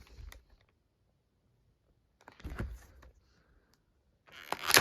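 Handling noises from a plastic VHS clamshell case: three short bursts of clicks and rustles, the loudest near the end.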